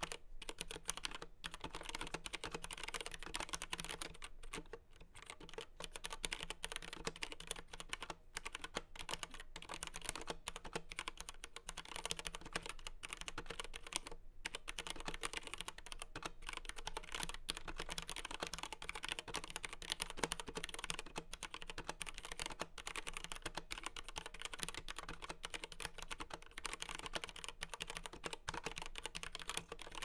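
Continuous fast typing on a Keychron K8 mechanical keyboard with tactile Gateron Brown switches and ABS keycaps: a dense stream of key clacks with a few brief pauses.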